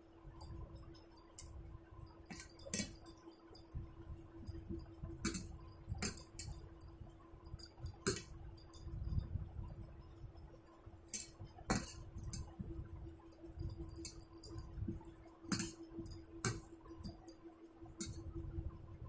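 Eating sounds: chewing and mouth noises with frequent light, glassy clinks scattered through, over a steady low hum.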